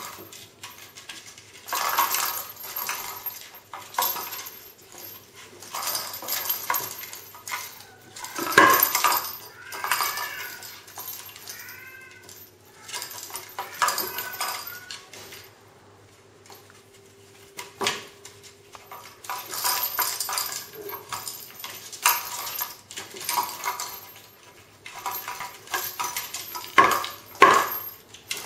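Kittens pawing and scrabbling at a box toy with holes on a tile floor: repeated clattering, knocking and scraping as the box is shoved about. A few short kitten mews come about ten seconds in.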